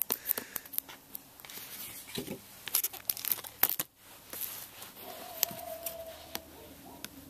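Irregular crinkling and clicking of a shrink-wrapped plastic Blu-ray case being handled, coming in clusters with a short pause about four seconds in.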